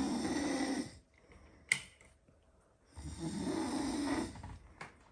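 A man snoring in his sleep: two long rasping snores about three and a half seconds apart, with a short click between them. The speaker calls the snoring still only light at this point.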